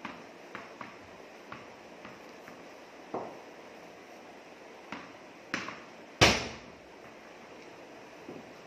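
Tennis ball bouncing on a hard tiled floor and knocking against a cricket bat in gentle defensive shots. A scattering of sharp knocks, with one much louder crack about six seconds in that rings briefly in the room.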